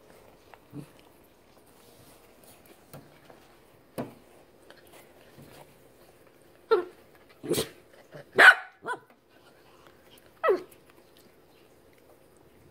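Dachshund barking: about five short, sharp barks in the second half, close together. Before them come a couple of faint knocks.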